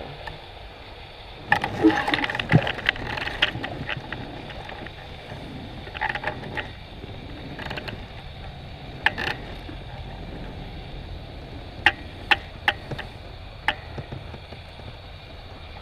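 Hot air balloon basket creaking and clicking as it hangs in flight: a cluster of sharp creaks about two seconds in, then single clicks every few seconds over a low steady background.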